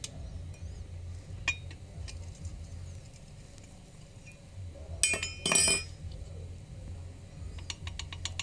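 Metal engine parts clinking and ringing against each other as a crankshaft is handled in an opened engine block. There are a few light ticks, then a loud cluster of ringing clinks about five seconds in, and a quick run of small ticks near the end.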